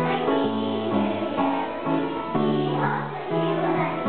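A group of young children singing a Christmas nativity song together over instrumental accompaniment that holds steady low notes, changing pitch every second or so.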